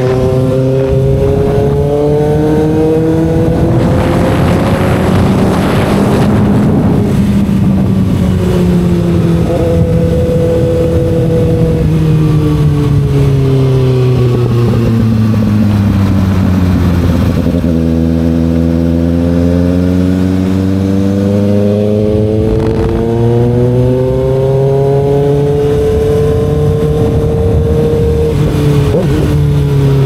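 2024 Kawasaki ZX-6R's inline-four engine running under way. Its note climbs, sinks slowly over about ten seconds, then climbs again as the throttle opens and closes. A rush of noise comes about four seconds in.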